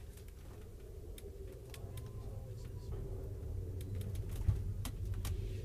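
Low, steady rumble inside a slowly moving Amtrak Auto Train passenger car, with scattered light clicks and creaks. It grows a little louder toward the end, with one sharper click about four and a half seconds in.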